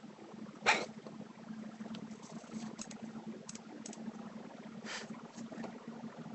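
A person's hiccup, one sharp sudden catch about a second in and a softer one near five seconds, with a few faint clicks between and a steady low hum underneath.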